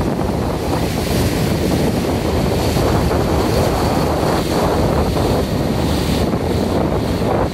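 Steady wind buffeting the microphone over the rush and splash of water from boats under way.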